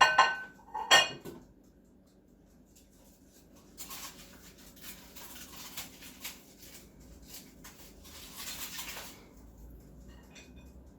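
Small repair tools scraping and clicking against a phone's screen and frame as it is pried apart, in uneven short strokes.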